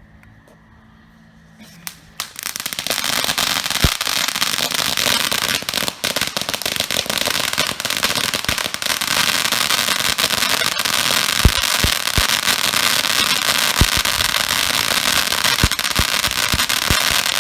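Black Cat Darkside 500-gram fan fountain firework going off: starting about two seconds in, a steady loud hiss of spraying sparks with dense crackling and scattered sharp pops.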